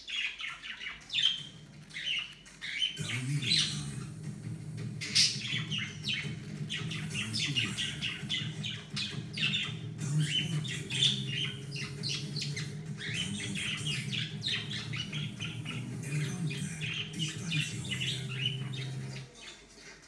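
Cockatiel chattering with many short chirps and squawks while pecking at an apple. A low droning hum starts about three seconds in and stops shortly before the end.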